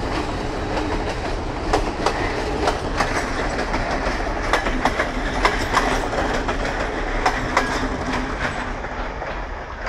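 Carriages of a damaged S8 diesel multiple-unit set, hauled by a locomotive, rolling past: steel wheels clacking over the rail joints in irregular clusters over a steady rumble, fading near the end as the last car goes by.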